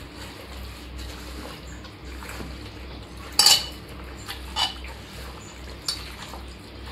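Chicken being mixed by hand with its marinade in a bowl, with several clinks and knocks against the dish, the loudest about three and a half seconds in.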